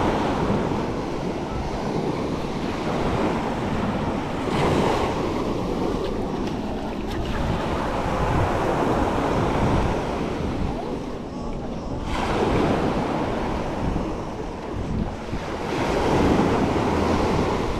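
Sea waves breaking and washing up a sandy beach, surging and ebbing about every four seconds, with wind buffeting the microphone.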